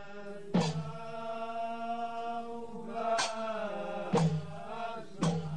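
Dakka Marrakchia troupe: male voices chanting together in long held notes, with a few sharp percussive strikes, about one a second in the second half.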